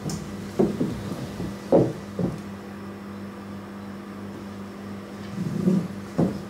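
Heavy prismatic LiFePO4 battery cells being set down on a tile floor and pushed into a row against each other: a few dull knocks, some in the first two seconds and two more near the end, over a steady hum.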